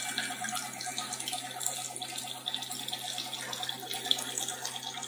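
Water running through a clear PVC float-type condensate trap on a test rig and draining out, a steady flow, with a steady low hum underneath.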